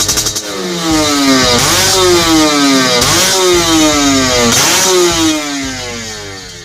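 Yamaha RX-King's two-stroke single-cylinder engine revved through its gutted (bobok) muffler, tuned for a crisp, snoring 'garing ngorok' note. The throttle is blipped three times about a second and a half apart, each rev falling away slowly, and the sound fades near the end.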